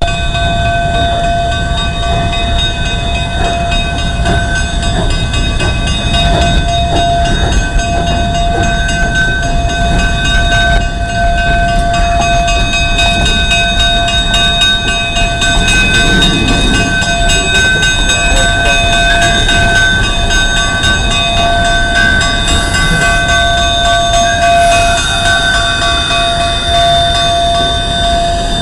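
Narrow-gauge K-36 steam locomotive No. 481 moving slowly through the yard: a steady low rumble with several constant high, thin tones over it.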